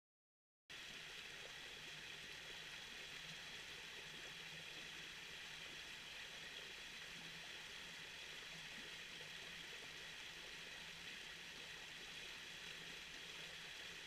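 Mountain stream rushing over rocks and small cascades: a steady, faint rush of water that cuts in suddenly about a second in.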